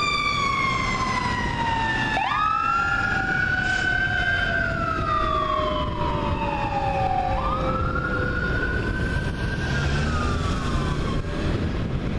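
A fire engine's Federal Q mechanical siren winds down in a long falling whine. About two seconds in, an electronic wail siren starts with a quick rise, then slowly falls and rises again before stopping near the end. Steady traffic noise runs underneath.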